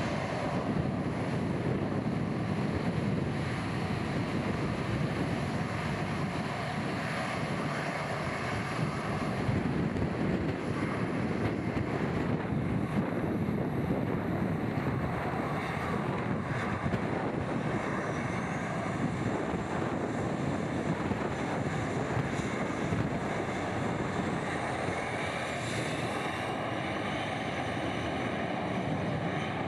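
Strong typhoon wind buffeting the microphone over the steady noise of jet airliner engines, with a faint high whine that rises in pitch about two-thirds of the way through.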